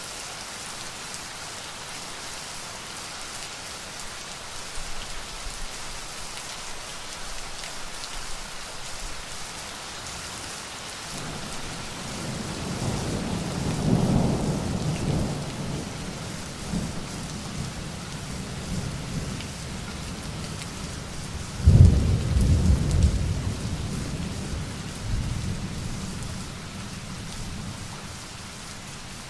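Steady rain with two rolls of thunder. A low rumble swells about halfway through and fades, then a sharper, louder clap comes later and rumbles away.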